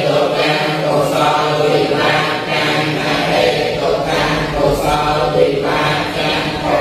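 A group of Buddhist monks and lay followers chanting together in unison from their books, many voices held on a steady recitation tone and broken into phrases.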